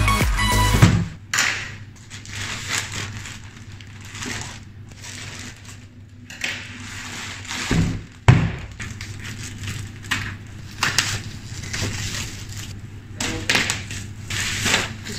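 Plastic courier mailer and bubble wrap being handled and torn open, crinkling and rustling in uneven bursts, with a couple of sharp thumps as the package is set down on the table, one about a second in and one about eight seconds in.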